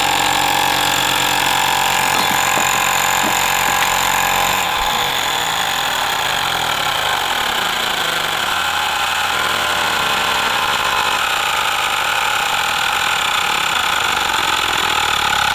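Fanttik X8 cordless tire inflator's compressor running steadily under load, pumping a bicycle tire up toward 65 PSI.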